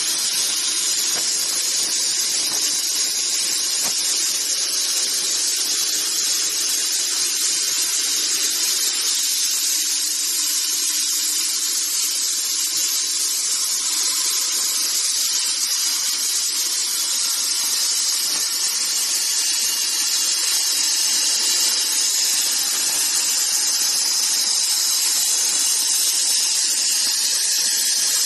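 Plasma torch of a CNC pipe cutting machine cutting pipe: a steady, unbroken high hiss.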